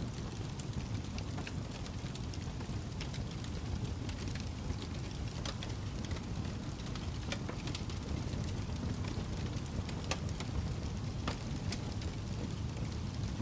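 Wood fire burning in a fireplace: a steady low rumble of flame with irregular sharp crackles and pops, several a second.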